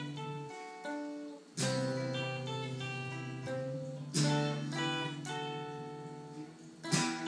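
Guitar playing a slow worship tune: a full chord strummed about every two and a half seconds, with single picked notes ringing over a low sustained bass between strums.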